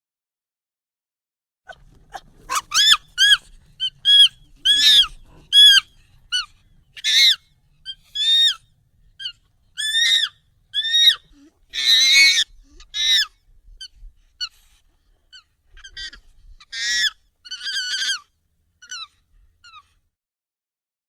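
Monkey calls, sped up and pitched up: a fast run of short, high-pitched calls, many rising then falling in pitch. They start after a second or two of silence and stop shortly before the end.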